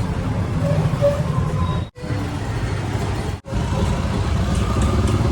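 A motor vehicle engine running steadily, cut off abruptly twice by edits, about two and three and a half seconds in.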